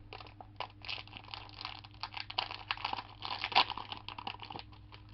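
Plastic snack packaging crinkling and crackling as it is handled and opened, in quick irregular bursts with the sharpest crackle about three and a half seconds in.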